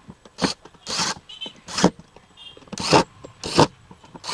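Hand screwdriver driving screws into a plastic speaker cabinet: a series of short scraping twists at irregular intervals, about six, with a faint squeak between them.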